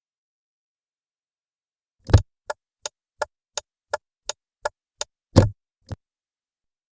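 Car turn-signal stalk flicked on with a thunk, then the indicator clicking at about three ticks a second, eight times, before the stalk is pushed back with a second thunk and a last soft click.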